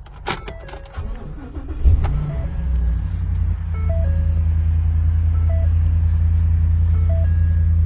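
Ford F-150 Raptor's 6.2-litre V8 cranking and catching about two seconds in, then idling steadily: the newly programmed key has been accepted by the immobiliser and starts the engine. A faint chime repeats about every second and a half over the idle.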